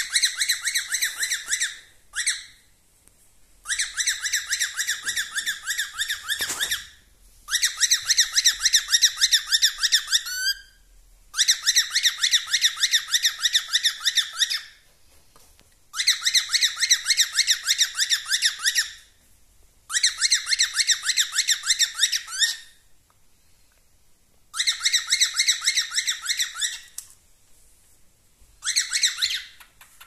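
Male cockatiel singing: about eight warbling phrases of fast, rapidly repeated high notes, each two to three seconds long, with short pauses between them.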